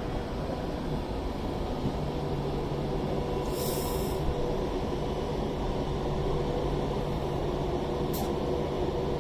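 Class 390 Pendolino electric train running into the station, a steady rumble with a low electric hum. A short hiss comes about three and a half seconds in, and a brief click near the end.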